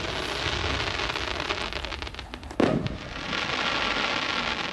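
Daytime fireworks: a continuous crackling hiss, one sharp bang about two and a half seconds in, then a dense hiss as a shell climbs from the launch site.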